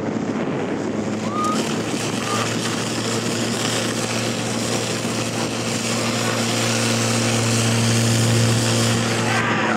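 Portable fire pump engine running flat out with a steady low drone, feeding the hoses during a firefighting-competition attack, with the hiss of the water jets over it. The drone grows a little louder in the second half.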